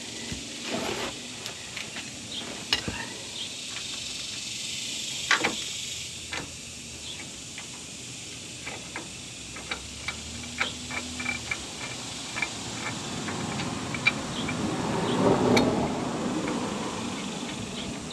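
Scattered small metallic clicks and taps as a brake caliper mounting bolt is fed in and threaded by hand, over a steady background hiss. A louder rustle of movement comes near the end.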